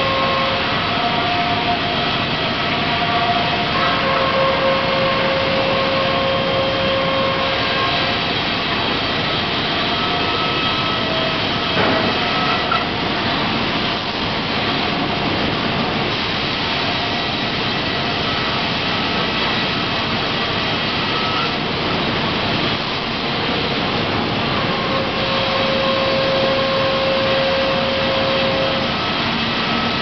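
Sawmill machinery running in a steady loud din of saws, electric motors and roller conveyors, with a steady whine that comes and goes for a few seconds at a time and one sharp knock about twelve seconds in.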